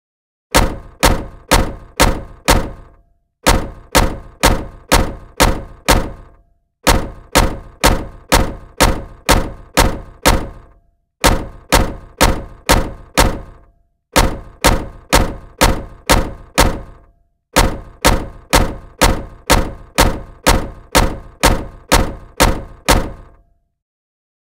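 A run of identical heavy thunk sound effects, about two a second, in runs of five to seven with short pauses between. Each hit fades quickly.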